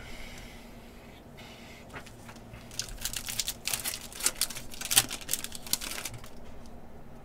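Foil wrapper of a Panini Contenders basketball hobby pack being torn open and crinkled by hand. A quick run of sharp crackles starts about two seconds in and is loudest around the middle.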